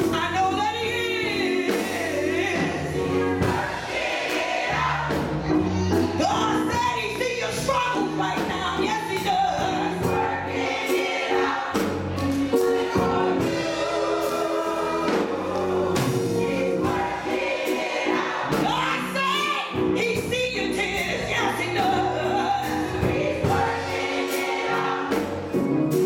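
Gospel choir singing, led by a woman singing lead into a handheld microphone.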